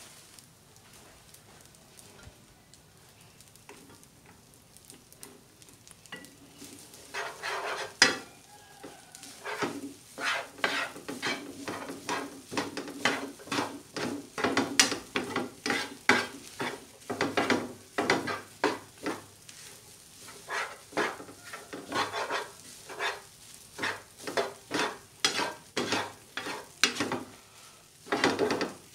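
Spatula scraping and tossing fried rice with shredded cabbage in a coated frying pan, short strokes about two a second over a low frying sizzle, starting about seven seconds in.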